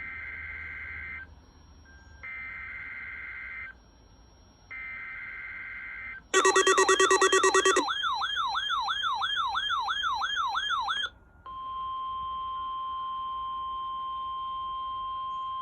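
EAS Required Weekly Test on NOAA Weather Radio. It opens with three SAME header data bursts, each a warbling two-pitch screech of just over a second with short pauses between. Weather radio alert sirens then go off: first a loud, pulsing buzz for about a second and a half, then a warbling siren sweeping repeatedly for about three seconds. After a brief pause comes the steady 1050 Hz NOAA Weather Radio warning alarm tone.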